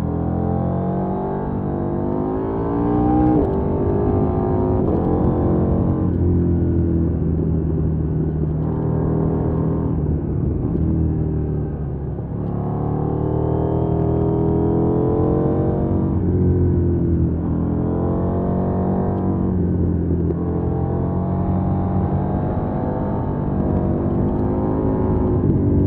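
KTM 790 Duke's 799 cc parallel-twin engine pulling hard. Its note climbs under throttle and then drops sharply, about half a dozen times, as the motorcycle accelerates between bends.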